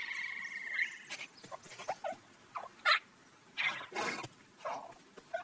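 Cartoon sound effects: a steady whistle-like tone through the first second, then a string of short animal-like squeaks and chirps from the small cartoon critters, with a few light clicks.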